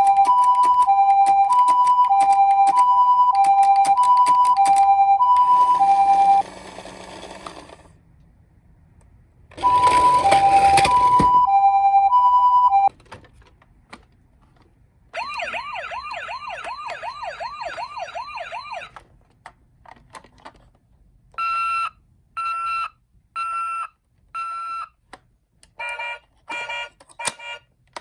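Electronic sirens of toy ambulances sounding in turn. A high-low two-tone siren repeats for about six seconds, and a shorter run of it comes about ten seconds in. A fast warbling wail follows, then a string of short electronic beeps near the end.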